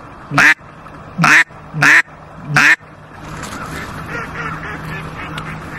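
Four loud duck quacks in quick succession, about two-thirds of a second apart, in the first three seconds.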